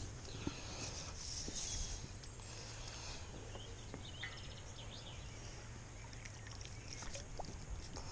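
Faint outdoor background: a low steady rumble with a few light clicks and soft rustles as a fishing pole is handled.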